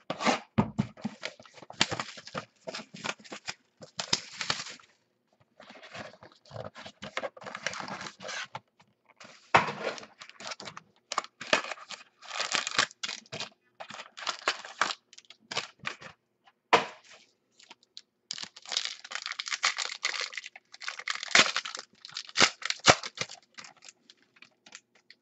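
Plastic shrink-wrap and foil card-pack wrappers being torn and crinkled as a sealed box of football trading cards is opened and its packs taken out: irregular bursts of crackling and tearing with short pauses between them.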